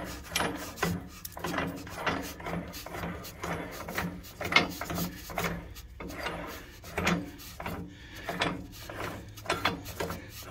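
Threaded screw-up pad on a car lift arm being unscrewed by hand: the metal threads scrape with each turn, a repeated rasping stroke about twice a second.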